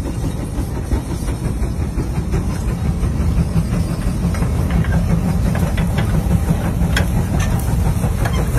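A steam tractor pulling a huge multi-bottom gang plow through a field: a loud, steady, heavy rumble with scattered clanks and rattles from the plow frame, mostly from the middle of the stretch on.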